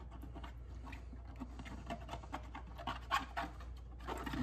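Fingers rubbing and scratching leftover label adhesive off a plastic ketchup bottle held in a bowl of water: faint, irregular scratchy strokes, getting louder near the end.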